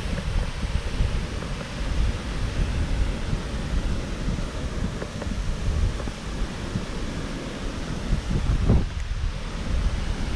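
Wind buffeting the microphone in uneven gusts of low rumbling, over a steady rushing noise.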